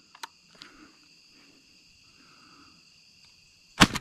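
A shotgun fired once near the end, a sharp sudden blast, over a steady high buzz of insects.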